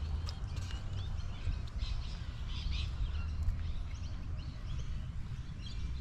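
Birds chirping and calling, many short scattered chirps, over a steady low rumble on the microphone.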